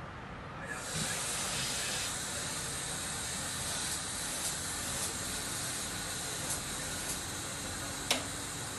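Steady hiss from soldering on a car alternator's brush-holder and rectifier terminals, starting about a second in, with a few small ticks and one sharp click near the end.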